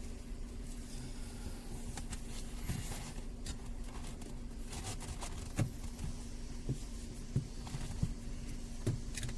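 Steady low hum and rumble inside a car cabin, with a few short soft knocks and clicks in the second half.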